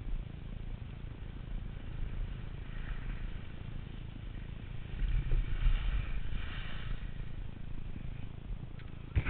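Wind buffeting a body-worn camera's microphone with a low rumble, mixed with the hiss of skis sliding on snow. It grows louder about five seconds in as the skier sets off downhill.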